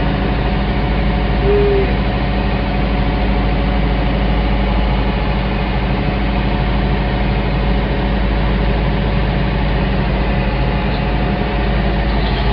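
Tractor engine running steadily while its pallet forks push a bush hog along, with one brief high note about one and a half seconds in.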